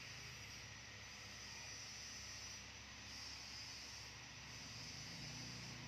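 Faint, steady background hiss with no distinct sound events, and a faint low hum near the end.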